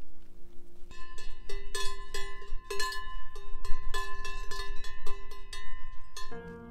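A grazing cow's neck bell clanking in quick, irregular strokes, each ringing on briefly. It starts about a second in and stops abruptly near the end, with background music on either side.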